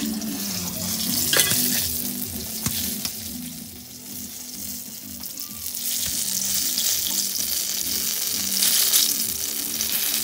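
Turmeric-coated slices frying in hot oil in a metal wok, a steady sizzle that dips briefly and grows louder about halfway through.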